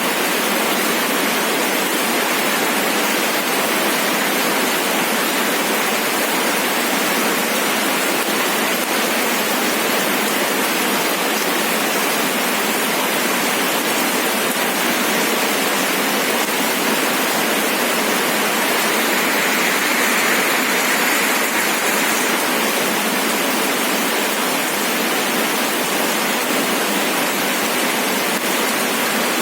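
Steady rain falling, an even, unbroken wash of sound.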